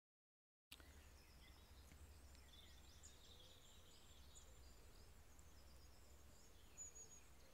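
Faint birdsong in woodland: many short chirps and twitters from several small birds, starting under a second in, over a low steady rumble.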